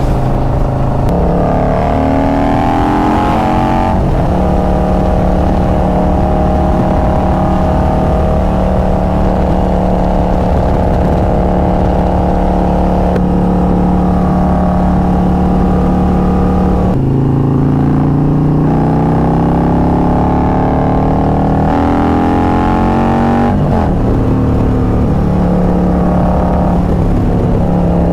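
Harley-Davidson touring motorcycle's V-twin engine and exhaust under way: it pulls up in pitch through the first few seconds, holds a steady cruise for a long stretch, then climbs again through a couple of gear changes in the second half, with a drop in pitch at each shift.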